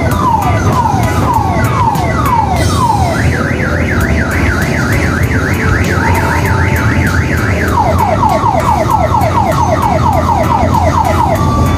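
Electronic siren of a ride-on mini train cycling through its tones. First come falling wails about twice a second, then a fast up-and-down yelp from about three seconds in, then quicker falling sweeps from about eight seconds in. A steady low rumble of the train running lies underneath.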